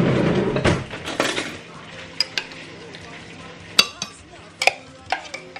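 A spoon scraping and clinking against a cup and the blender jar as tomato paste is scooped in. The scraping comes first, then several sharp, separate taps.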